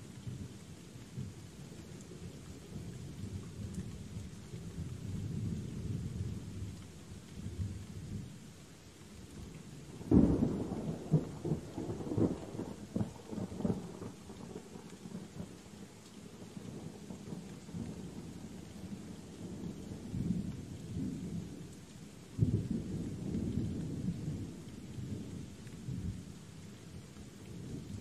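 Thunderstorm: steady rain hiss under continual low rolling thunder, with a sudden louder thunderclap about ten seconds in and another about twenty-two seconds in.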